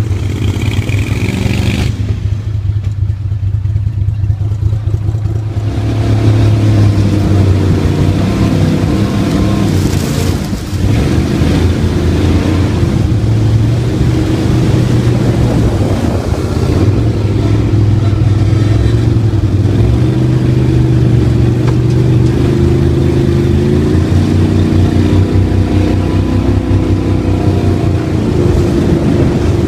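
Gatortail surface-drive mud motor running hard, pushing the boat along. Its pitch shifts up and down, it gets louder about six seconds in, and it dips briefly near the ten-second mark.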